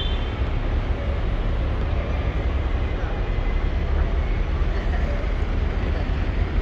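Steady city street noise with vehicle traffic and a constant low rumble.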